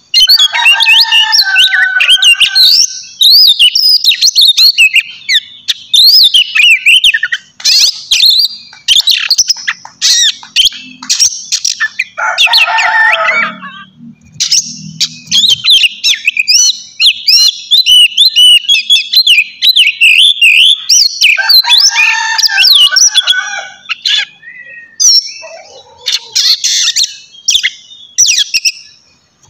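Oriental magpie-robin (kacer) singing a loud, fast, varied song of whistles, trills and harsher chattering notes, with a couple of short pauses.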